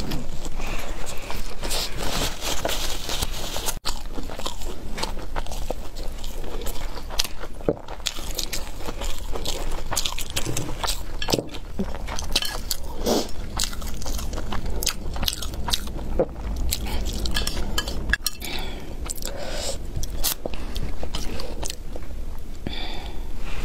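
Close-miked biting and chewing of a crispy, loaded shou zhua bing wrap, with irregular crunches and wet chewing throughout.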